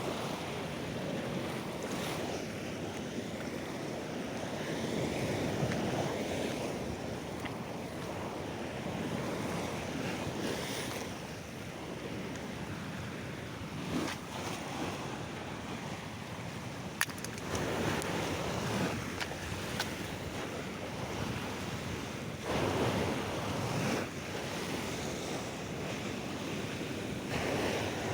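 Sea waves breaking and washing up on a beach: a continuous rushing surf that swells every few seconds as each wave comes in.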